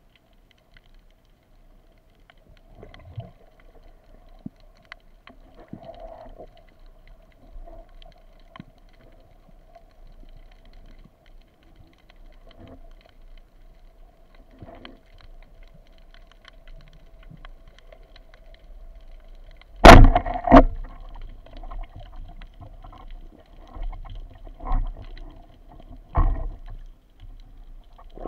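Underwater sound through an action-camera housing: a faint steady hum with scattered small clicks, then, about two-thirds of the way through, a loud sharp crack as the rubber-band speargun is fired, followed by a few smaller knocks.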